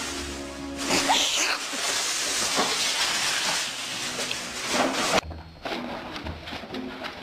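Background music, overlaid from about a second in by a loud hissing noise that cuts off abruptly about five seconds in.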